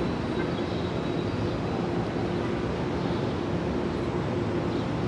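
Metro-North commuter train running at the station: a steady rumble with a steady hum.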